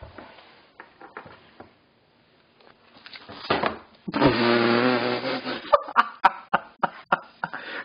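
Faint rustling and a few light taps, then about four seconds in a long, drawn-out vocal sound from a person, followed by short repeated bursts of laughter.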